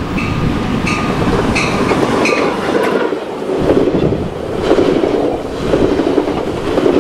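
Coaster commuter train passing close by at speed: the diesel locomotive goes past with a regular ringing strike about every two-thirds of a second that stops a couple of seconds in, then the bilevel passenger cars follow with a rumble and rhythmic clickety-clack of wheels over the rail joints.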